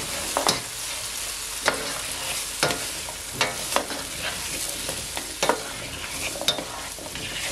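Small-cut potatoes frying in hot olive oil in a pot with a steady sizzle while being stirred with garlic and rosemary. The utensil knocks and scrapes against the pot at irregular intervals.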